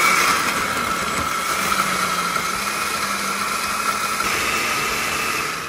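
Countertop blender running at speed, puréeing roasted tomatoes, onion, garlic and chiles with water into a salsa. Steady whirring with a constant high hum, loudest in the first second, winding down near the end.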